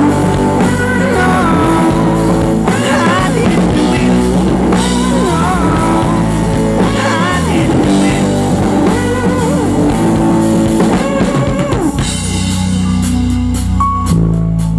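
Live rock band playing at full volume: drum kit, guitar and bass under wavering melodic lines. About twelve seconds in the band drops back to held chords with sharp drum hits.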